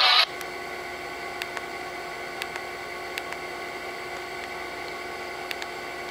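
Music with singing from a BlackBerry's iHeartRadio stream cuts off a fraction of a second in, leaving a steady hum broken by faint clicks, mostly in pairs, from presses on the phone's trackpad and keys.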